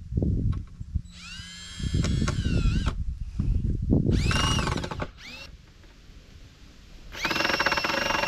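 Cordless drill driving screws into 2x4 framing lumber: three short runs of motor whine, each rising in pitch as it spins up, with knocks of the boards being handled between them.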